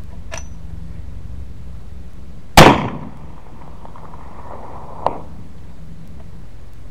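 A single shot from a Sharps rifle chambered in 45-120: one loud sharp report with a short rolling tail. About two and a half seconds later comes a faint tick, the sound of the bullet striking a steel target 500 yards downrange.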